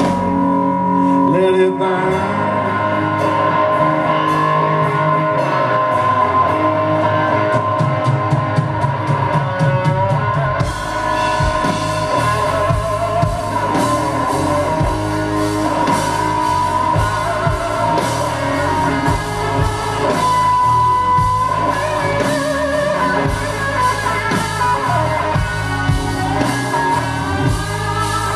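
Live blues-rock band playing: a Stratocaster-style electric guitar over bass guitar, keyboards and drum kit. The drums and cymbals grow fuller and brighter about ten seconds in.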